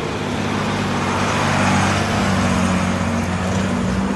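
Fire truck engine running as the truck drives past close by, a steady low drone that grows louder as it nears.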